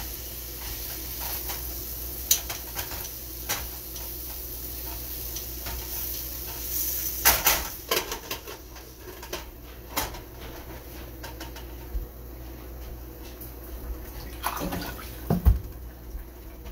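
Pots and pans clattering at a stovetop: a spatula stirring and tapping in a frying pan and glass lids being lifted and set down, giving sharp clinks every few seconds, loudest near the middle and near the end. Under them runs a steady hiss whose higher part drops away about nine seconds in.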